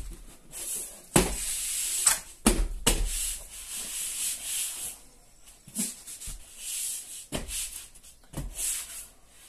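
Hands rubbing and pressing across the face of a sheet of insulated plasterboard: dry scraping in repeated strokes, with several sharp knocks as the board is pushed and tapped against the wall.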